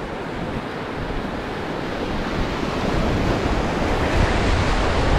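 Whitewater rapid rushing and churning around a paddle raft, growing steadily louder as the raft moves into the rapid, with wind buffeting the microphone in low rumbles.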